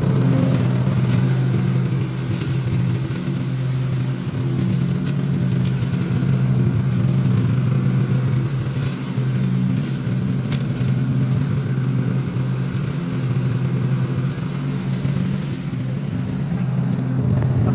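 Toro TimeCutter zero-turn mower engine running steadily at a constant speed, with a few faint clicks over it.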